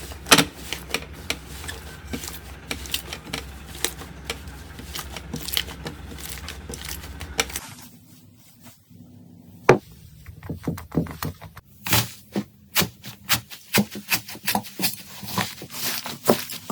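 Slime being handled: pressed, poked and stretched, giving a run of sticky clicks and pops. A low hum sits under the first part; after a short break about seven or eight seconds in, a second stretch of handling follows, with the pops coming quickly, several a second.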